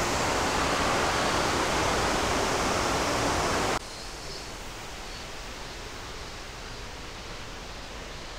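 Steady rushing of flowing water, which drops suddenly to a much lower level about four seconds in.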